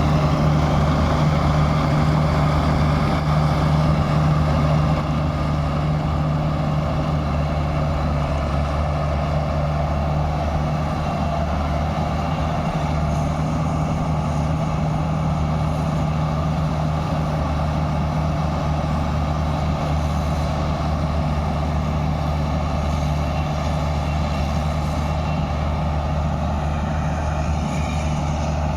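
Claas Crop Tiger 40 combine harvester's engine running steadily under a haze of machine noise, a little quieter from about five seconds in.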